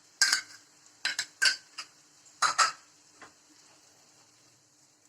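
A spoon clattering and scraping against a pan in a run of quick knocks over the first three seconds or so, as white sauce is stirred into sautéed spinach and corn.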